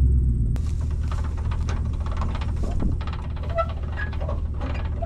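An engine idles with a low rumble that drops in level about half a second in. Over it come irregular light knocks, clicks and footsteps as someone walks up to a trailer hitch.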